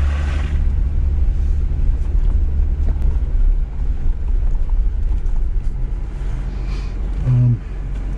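Jeep Gladiator Rubicon driving off-road: a steady, heavy low rumble of engine and drivetrain, with a brief louder surge about seven and a half seconds in.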